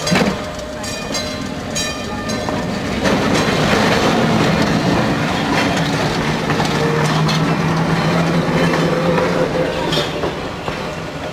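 Electric trolley car running on the rails: a knock and scattered clicks, then from about three seconds in a louder steady rumble of wheels on track with a low hum underneath.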